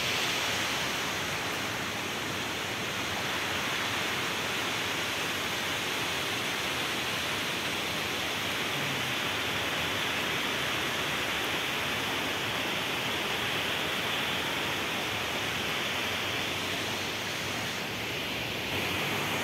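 Nairobi River water rushing over rocks, a steady even noise that keeps up without a break.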